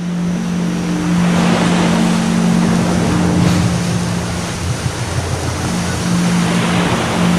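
Ocean surf washing onto a beach, with a steady low hum underneath.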